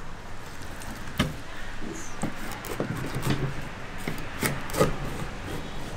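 Flexible fillet knife working through a Pacific barracuda along its rib cage: a low scraping rustle with scattered clicks, and a sharper knock about a second in.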